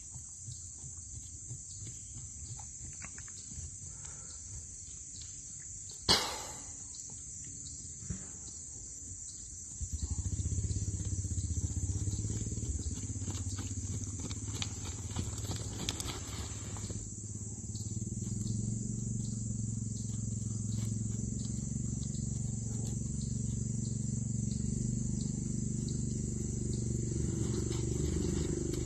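Steady high-pitched insect buzzing, with one sharp knock about six seconds in and a low, engine-like drone that comes in at about ten seconds and carries on.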